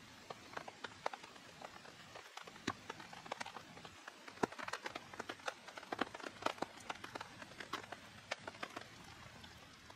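Rain falling in a forest, heavy drops tapping irregularly on a tarp shelter overhead over a steady rain hiss, fading out near the end.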